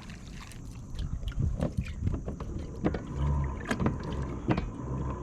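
Water sloshing against a fishing kayak's hull, with a run of sharp knocks and taps on the boat starting about a second in.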